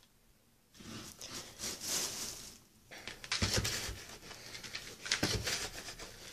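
Garden soil tipped from a plastic scoop into a plastic bucket of wet coco coir and sawdust, pattering and rustling in uneven spurts starting about a second in, with the scoop scraping through the mix and giving a few dull knocks.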